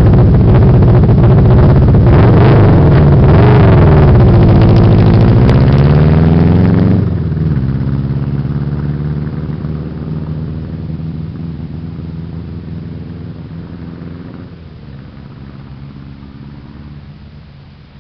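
Motorcycle engine revving loudly close by, its pitch rising and falling. About seven seconds in it drops away suddenly, and the engine note then fades steadily as the bike rides off down the road.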